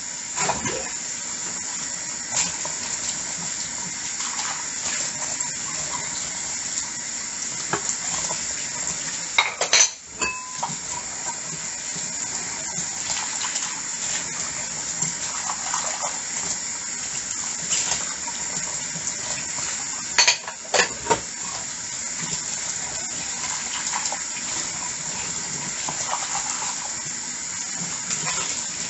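Tap water running steadily into a sink while dishes are washed by hand, with light clinks of crockery and cutlery throughout. Two louder clatters of dishes knocking together, about ten seconds in and again about twenty seconds in.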